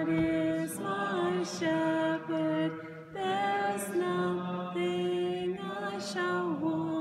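A man's voice chanting a slow sung text in long held notes that move by small steps, over a steady lower drone note held beneath the melody.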